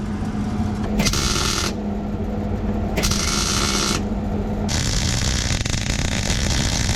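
Welding arc crackling in three bursts as tabs are tacked in place: a short one about a second in, another around three seconds, and a longer one from about five seconds on. A steady low hum runs underneath.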